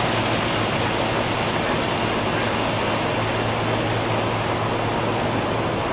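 Steady rushing noise with a low, even hum underneath, as heard on the open deck of a moving cruise yacht: air and water rushing past, over the boat's engines.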